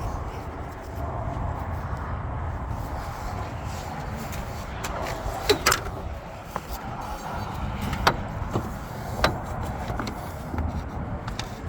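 A few sharp metallic clicks and clinks from handling a just-removed water pump and tools, over a steady low rumble of vehicle noise.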